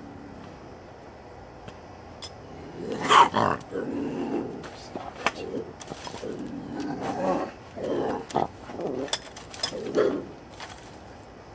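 A bobcat caught in a foothold trap growling in a run of rough bursts, the loudest about three seconds in, with a few sharp clicks among them: the defensive growls of a trapped wild cat.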